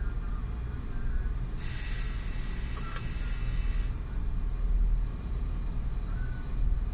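A steady low machinery rumble. About one and a half seconds in, a loud hiss starts abruptly and cuts off about two seconds later.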